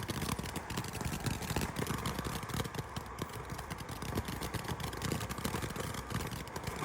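Ground firework fountain spraying, a steady hiss with dense small crackles.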